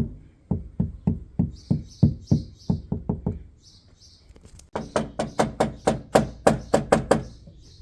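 Car door speaker playing a beat of repeated deep bass thumps, about three a second, with a light hiss over some of them. The thumps pause about three and a half seconds in and come back a second later, brighter and with more midrange in each hit.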